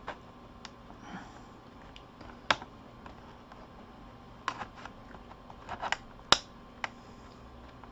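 Scattered sharp plastic clicks and taps, about seven of them, from a laptop's plastic case being pried and handled; the loudest click comes a little past six seconds in.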